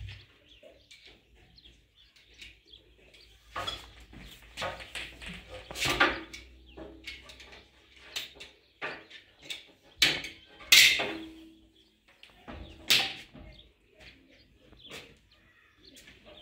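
Irregular clicks, knocks and scrapes as white plastic water pipe is handled and cut with a hand pipe cutter, a few louder knocks around the middle.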